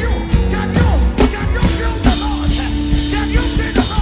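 Live band music driven by a drum kit played hard with sticks: rapid drum strokes over a steady bass, with cymbals washing in from about a second and a half in.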